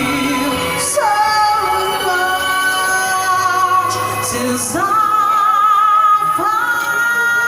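Music: a song with a female voice singing long held notes with vibrato over an accompaniment.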